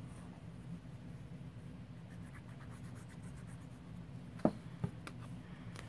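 Nozzle of a liquid glue bottle scratching faintly along paper as a line of glue is laid down, with two light clicks about four and a half seconds in, over a steady low hum.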